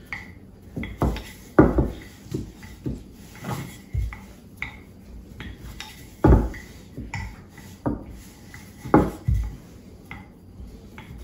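Wooden rolling pin thudding and knocking as it rolls flatbread dough thin on a floured countertop mat. The knocks are irregular, about one a second, with a short pause in the middle.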